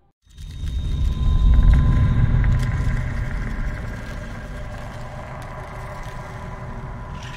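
A new ambient background music track begins after a brief gap: a deep rumbling drone swells in, peaks about a second and a half later and settles, with steady high tones held over it.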